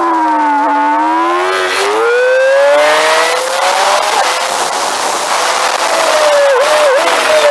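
Motorcycle engine at full throttle, pitch climbing through the gears with an upshift about two seconds in, then a loud wind rush at top speed, and two quick downshifts near the end as the bike brakes.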